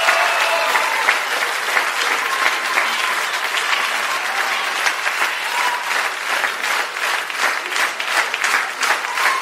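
Large crowd applauding, dense clapping that turns into sharper, more separate claps in the second half.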